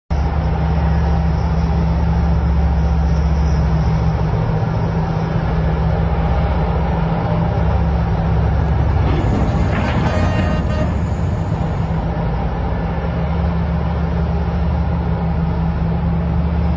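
Heavy mining machinery running with a steady, deep engine drone. A brief higher tone rises over it near the middle.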